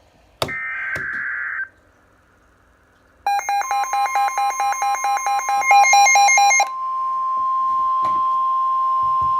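Emergency Alert System alert coming in on a NOAA weather radio: a short screechy digital SAME data burst, then rapid electronic beeping for a few seconds, then the steady 1050 Hz NOAA Weather Radio warning tone, which starts about two-thirds of the way through and holds.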